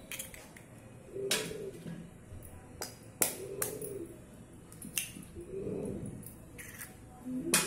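Eggs being cracked over a stainless steel bowl: a series of sharp, irregularly spaced taps and cracks of eggshell, with shells being pulled apart between them.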